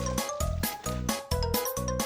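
Upbeat, playful background music with a steady bouncing beat, about three beats a second, under a simple melody.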